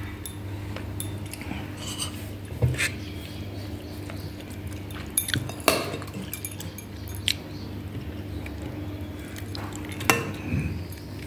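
Steel spoon scraping and clinking against a ceramic serving bowl as pieces of fish curry are scooped out, a few scattered sharp clinks over a steady low hum.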